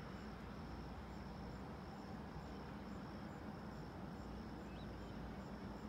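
Insects chirping: a steady high trill with fainter chirps about twice a second, over a low steady hum.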